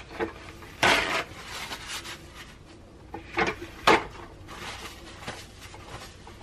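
Scattered knocks and clatters of dishes and kitchenware being handled at a kitchen sink: a short rattling clatter about a second in, then sharper knocks a little after three seconds and just before four.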